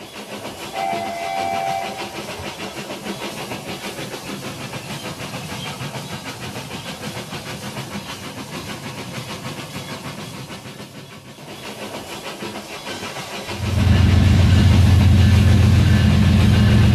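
Battery-powered toy trains running on plastic track: a steady rattling clatter of small motors and wheels, with a brief two-note toy horn about a second in. Near the end a much louder, deep buzzing sound starts suddenly and carries on.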